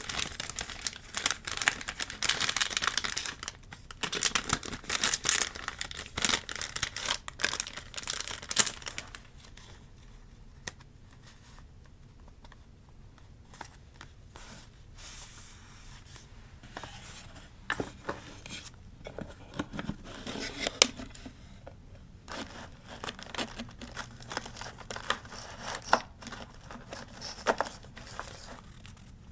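Paper being torn and crinkled by hand while decorating a journal, in dense bursts of rustling for the first nine seconds or so. After that it goes quieter, with scattered taps and short rustles.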